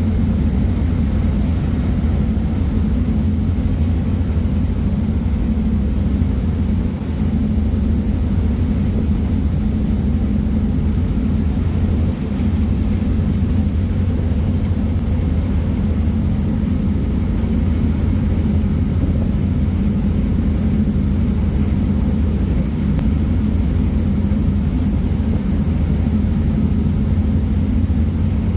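Passenger ferry under way: a steady low rumble of its engines, with the rush of the wake and wind at the open stern.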